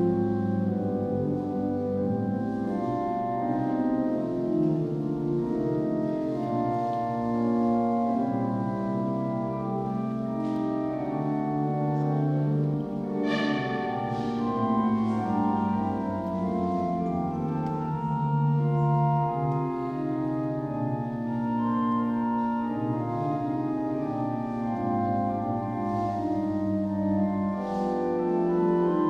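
Church organ playing a fugue: several lines of sustained notes overlapping and moving against one another.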